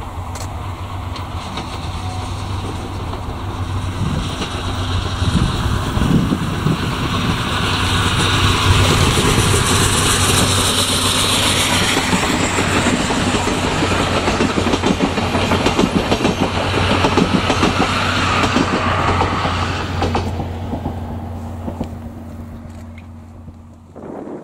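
A locomotive-hauled train of 12-series passenger coaches passes close by. Its rumble builds to a peak in the middle, with the rhythmic clickety-clack of wheels over rail joints, then fades away as it recedes.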